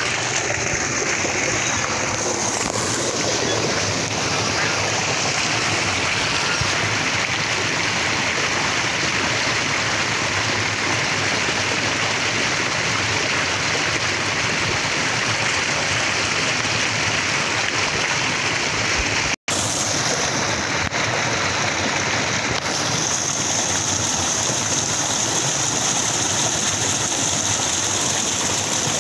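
Water gushing from a solar-powered tube well's discharge pipe and splashing into a concrete tank: a steady rushing noise that cuts out for an instant about two-thirds of the way through.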